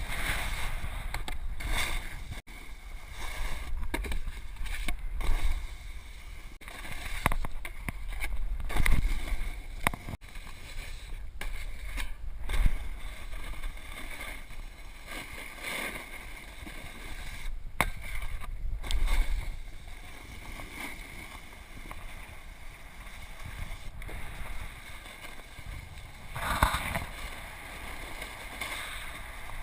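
Snowboard sliding and carving over packed snow, a steady scraping hiss, with wind rumbling on the camera microphone and a few sharp knocks from the handheld camera. The scraping swells louder near the end.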